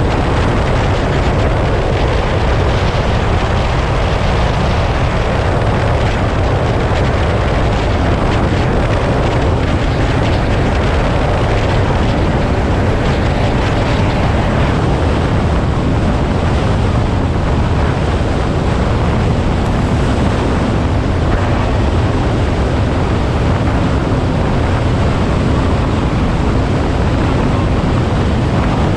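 Twin Mercury 225 outboards running at speed on a small boat under way through choppy sea, with wind rushing over the microphone: a loud, steady, unbroken rush.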